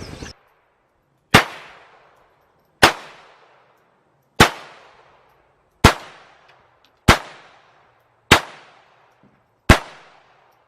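Seven handgun shots fired one at a time, about one and a half seconds apart, each sharp report followed by a short echo off the range.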